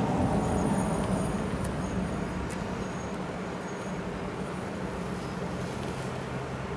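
Masking tape being peeled off a freshly sprayed truck cab corner, with a few small rips in the first few seconds, over a steady low vehicle engine rumble.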